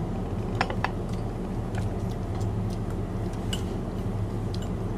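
Spoons and forks clicking against plates and bowls in short, scattered ticks, two sharp ones close together a little over half a second in, over a steady low hum.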